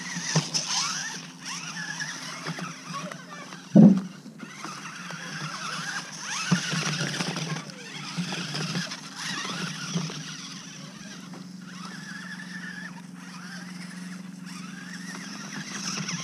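Small electric RC car (P810, 1:18 scale, 4WD) driving, its motor and gears whining and rising and falling in pitch as it speeds up and slows, with its tyres rustling through dry pine needles. A single sharp thump about four seconds in.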